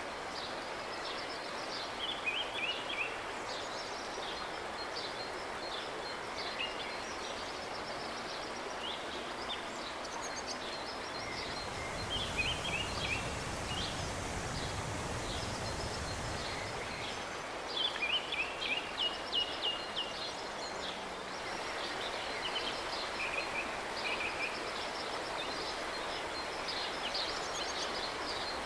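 River outdoor ambience: a steady wash of noise with songbirds chirping in quick series throughout. About halfway through, a low rush of water swells for a few seconds as the kayak passes over a shallow rocky riffle.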